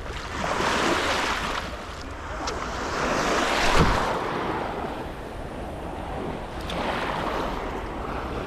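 Small waves washing in over a shallow sandy beach, the surf swelling and fading every few seconds, with wind buffeting the microphone. A brief low thump comes about four seconds in.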